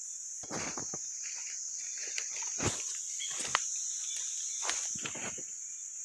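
Steady high-pitched chorus of forest insects, with footsteps crunching and rustling through dry leaf litter.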